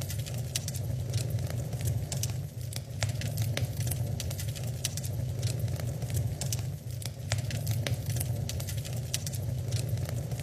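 Wood fire crackling in a fireplace: frequent sharp, irregular pops and snaps over a low steady rumble.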